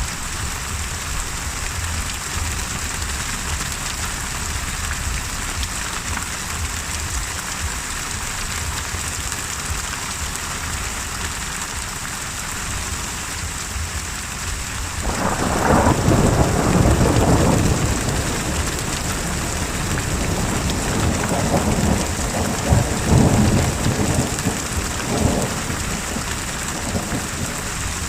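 Steady heavy rain, with a thunderclap breaking in about halfway through. It rolls loudly for a couple of seconds, then rumbles on with a few more claps before dying back into the rain.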